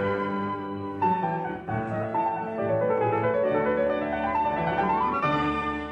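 Piano music: notes and chords struck one after another, a loud chord about a second in, then a quick rising run of notes into another chord near the end.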